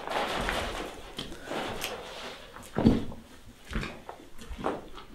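Footsteps scuffing over debris on a concrete basement floor, with a few dull thuds, the loudest about three seconds in.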